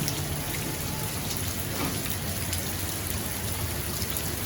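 Steady heavy rain, with occasional single drops landing close by.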